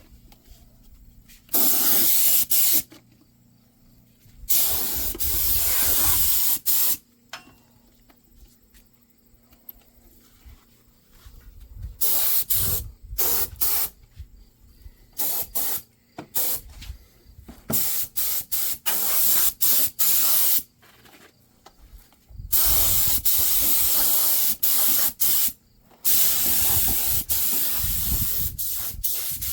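Air-powered spray gun hissing in repeated bursts as the trigger is pulled and released, spraying coating deep into a truck frame rail. There are about six longer bursts with short quick pulls between them.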